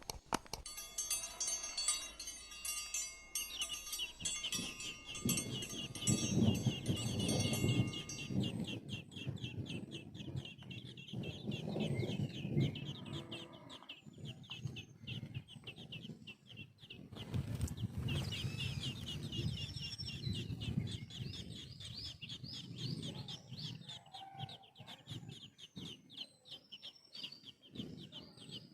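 Young birds chirping in a fast, continuous run of short high peeps, with bouts of lower clucking chatter mixed in.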